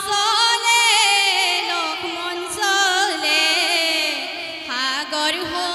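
Women's voices singing an Assamese devotional song together, the sung notes held and gliding with continuous music.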